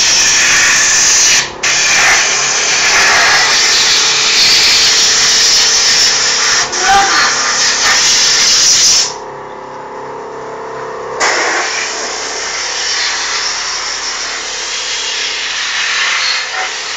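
Motorcycle engine running steadily at high revs. It drops away for about two seconds just past the middle, then picks up again a little quieter.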